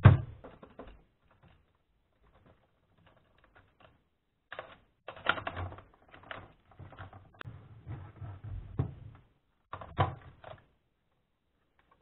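Clicking and clattering of a laptop's plastic case parts as they are handled and a plastic cover panel is unclipped: a burst at the start, then a dense run of clicks through the middle and a last burst near the end.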